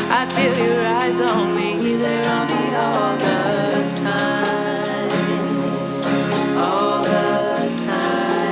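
Acoustic string-band music: strummed guitar and banjo with cello, and a melody line that bends and slides.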